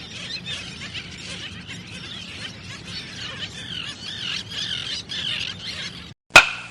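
Seabirds calling, many overlapping squawks over a faint hiss, cutting off abruptly about six seconds in. A single sharp crack follows near the end and is the loudest sound.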